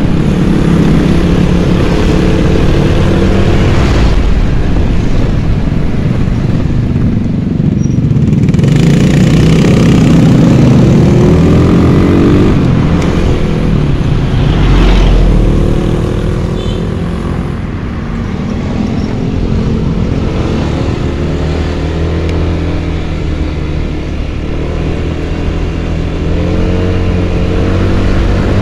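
A Yamaha scooter's engine running while riding through traffic, its pitch rising and falling with the throttle, and other vehicles passing. The loudest part comes about a third of the way in and again around the middle.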